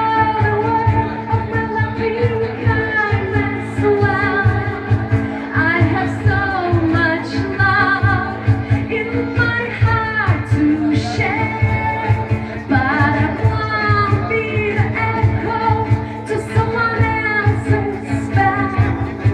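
Song with a voice singing a gliding melody over sustained chords and a steady low beat.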